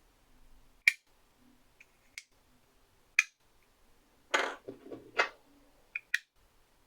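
Handling noises: several sharp, separate clicks, the last a quick pair, and a brief louder rustle or scrape in the middle.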